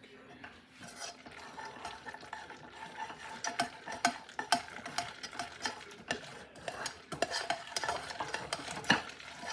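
A spoon stirring shells and cheese with broccoli in a pot, scraping and clinking against the pot irregularly, a few times a second, with one louder knock near the end.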